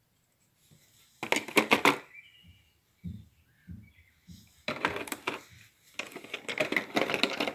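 Hands handling a plastic makeup case and its palettes: bursts of clicking and rattling, about a second in and again from about five seconds on, with a few soft low thumps in between.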